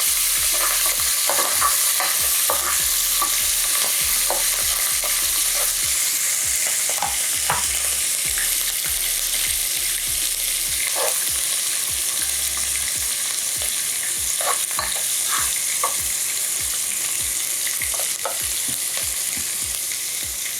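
Chopped onion frying in hot rapeseed oil in a pan: a steady high sizzling hiss with scattered crackles and clicks.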